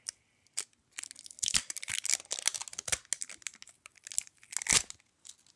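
Close crinkling and rustling of something being handled right at the microphone, in quick dense crackles that come and go, loudest about a second and a half in and again near the end.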